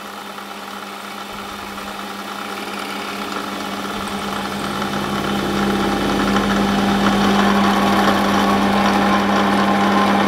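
Metal lathe running with a steady hum while a 1/4 inch twist drill in the tailstock bores into a spinning phosphor bronze bar. The cutting noise grows steadily louder as the drill goes deeper and rings more in the second half, the drill grabbing in the bronze.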